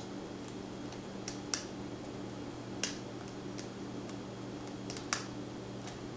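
Lock pick working the pin tumblers of a pin-tumbler challenge lock under tension: scattered sharp clicks, a few louder than the rest, over a steady low hum.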